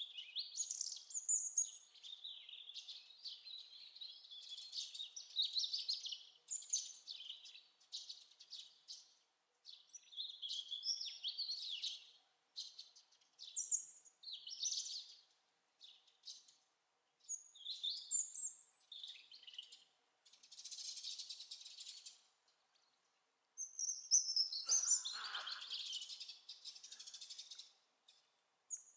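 European robin singing its autumn song: a run of short, high, thin warbling phrases separated by brief pauses. Near the end comes the loudest sound, a rougher burst that reaches much lower than the song.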